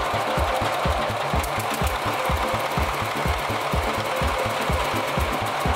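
Single-cylinder diesel engine running steadily, with an even beat of about four to five exhaust pulses a second.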